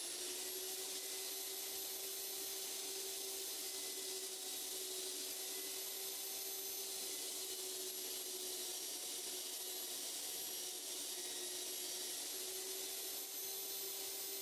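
Handheld belt sander, fixed on its side as a stationary sander, running steadily at full speed with a constant whine while small wooden box sides are held against the belt.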